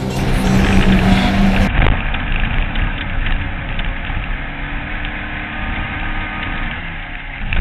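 Off-road race buggy engine running steadily as the car goes by on the dirt track. A little under two seconds in, this gives way to a dense, rough rumble full of small rattles and clicks: engine, wind and chassis vibration picked up by a camera mounted on the buggy's hood as it drives over rough dirt.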